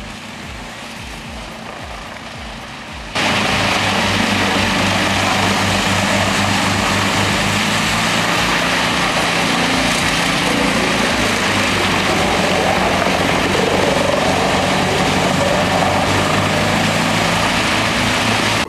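Large truck-mounted mobile wood chipper running, a steady engine drone with dense chipping noise; about three seconds in it jumps abruptly from a quieter hum to full loud running.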